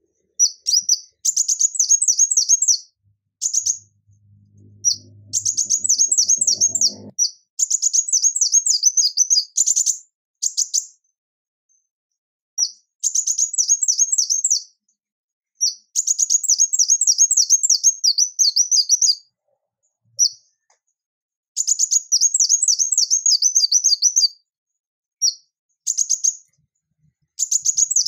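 Male ruby-cheeked sunbird singing: phrases of rapid, high-pitched twittering notes, each lasting one to three seconds, with short silent pauses between them.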